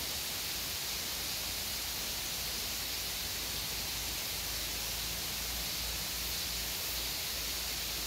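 Steady, even outdoor hiss with no distinct events, strongest in the upper range, over a faint fluttering low rumble.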